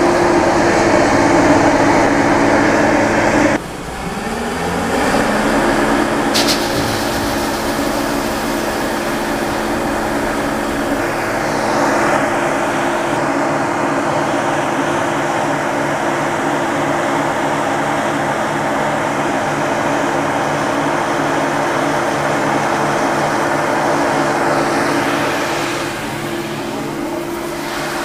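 Combine harvester's diesel engine running steadily at working speed. About three and a half seconds in, the sound drops abruptly, then climbs back up in pitch and holds steady.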